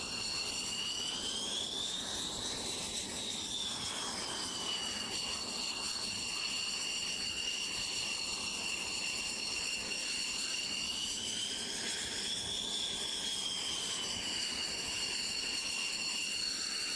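Northrop Grumman X-47B's turbofan engine running with a high turbine whine, which rises in pitch and falls back twice, about two seconds in and again about twelve seconds in.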